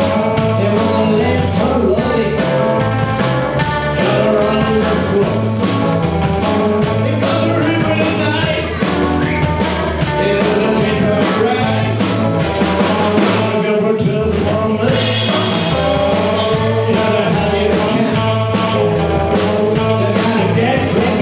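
Live rock and roll band playing: electric guitar, bass guitar and drums, with a man singing lead vocals.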